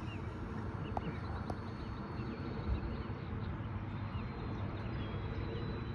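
Steady outdoor rumble, likely wind on the microphone, with a faint high steady whine from the RC trainer plane's brushless electric motor in flight at a distance.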